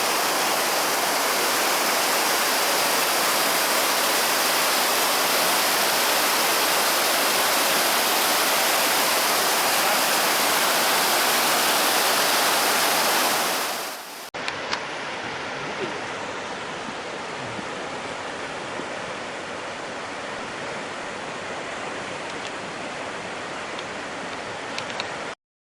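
Rushing water of a mountain headwater stream, loud and steady. About 14 seconds in it cuts abruptly to a quieter stretch of flowing water with a few small clicks, and the sound stops suddenly near the end.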